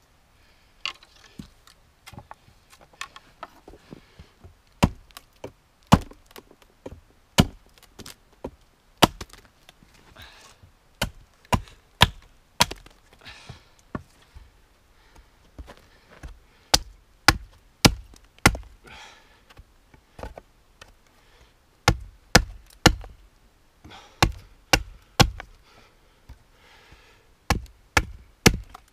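Hatchet chopping wood: a long run of sharp, irregular strikes, about one or two a second, as a wooden pole is worked against a log.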